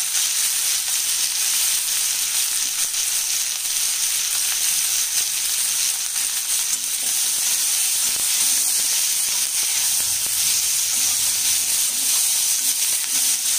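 Onions, green capsicum, tomato and garlic sizzling steadily as they fry in oil in a pan.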